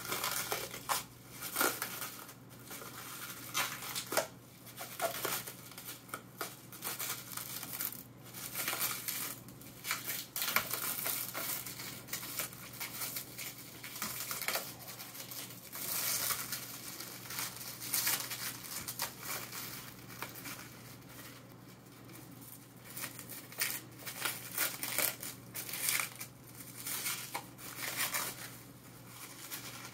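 Plastic wrapping crinkling and tearing as it is peeled off a packaged formicarium, with irregular clicks and light knocks from the plastic box being handled.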